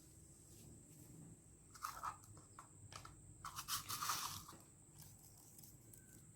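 Sprinkles being shaken out of their container onto cake batter: two short bursts of dry rattling and crunching, the second longer.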